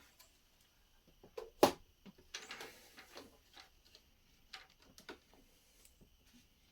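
Plastic Lego bricks and plates clicking and knocking as they are handled, a scattering of sharp, separate clicks, the loudest about a second and a half in.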